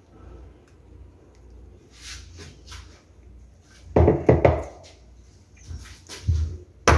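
A metal cake pan of batter knocked on a countertop: light clicks, then a loud cluster of knocks about four seconds in. Just before the end, rapid even tapping starts, about five taps a second, to knock air bubbles out of the batter.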